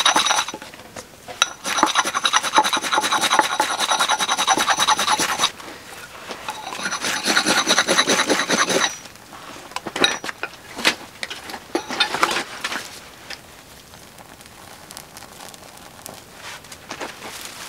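Axe blade scraped hard along a ferrocerium rod, striking sparks into lichen tinder: three rasping bursts of a few seconds each over the first nine seconds, each made of rapid fine strokes. After that come scattered light clicks at a lower level.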